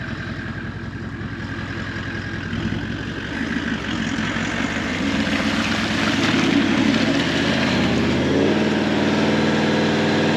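Four-wheel drive's engine working under load as it tows a tandem-axle caravan through deep mud. The revs climb about halfway through, then hold higher and louder.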